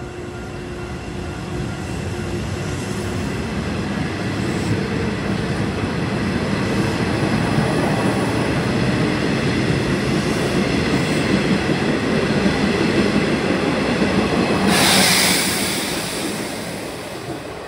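Nishitetsu 5000 series seven-car electric train pulling away and gathering speed: wheel rumble and clatter on the rails, with a faint steady whine, growing louder as the cars pass. A sudden loud hiss about fifteen seconds in as the last car goes by, then the sound fades.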